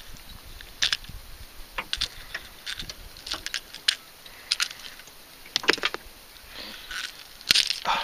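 Treble hooks and a hard plastic topwater lure clicking and rattling against a landing net's mesh while a hooked white bass is handled and worked free. Irregular small clicks and rustles, with a louder cluster near the end.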